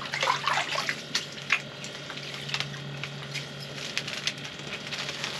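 Water splashing and sloshing in an ice-fishing hole as a small lake trout is let go back down it, with scattered clicks and crackles throughout over a low steady hum.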